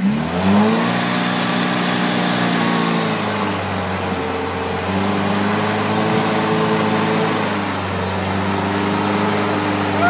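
Built Toyota pickup rock crawler's engine revving up and held at high revs under load on a rock ledge, easing off about three seconds in and picking back up about five seconds in.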